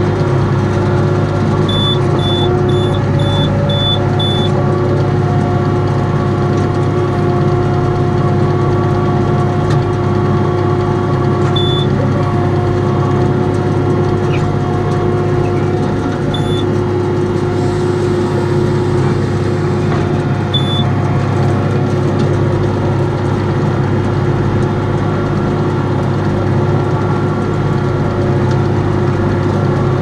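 Tractor engine running steadily while driving a Welger round baler through grass, heard from the tractor seat. Short high electronic beeps sound over it: a quick run of six about two seconds in, then three single beeps spread through the rest.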